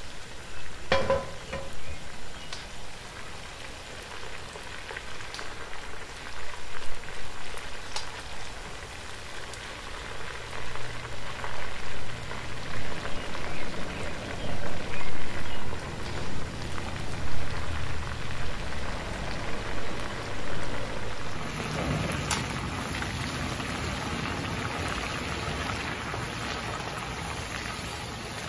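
Chicken pieces frying in hot oil in a cast iron skillet: a continuous crackling sizzle that swells and dips in loudness.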